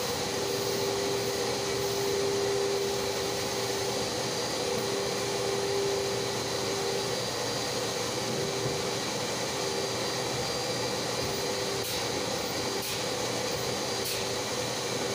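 Motor oil being pumped from a drum through a hand-held dispensing gun into the engine: a steady mechanical hum and hiss with a faint wavering whine. A few light clicks come near the end.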